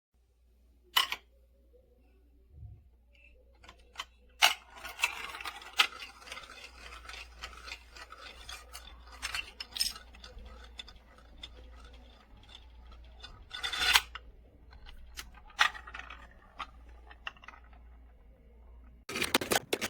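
Marbles rolling and rattling through a plastic marble run track, with sharp clicks and clacks as they drop and knock against the plastic pieces, and a burst of clattering near the end.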